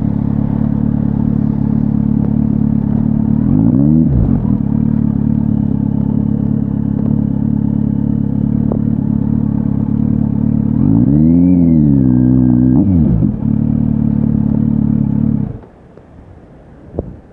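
Kawasaki Z900's inline-four through an SC-Project S1 exhaust, idling steadily. It is blipped briefly about four seconds in, then revved for about two seconds past the middle. Near the end the engine is switched off and cuts out suddenly, followed by a couple of faint clicks.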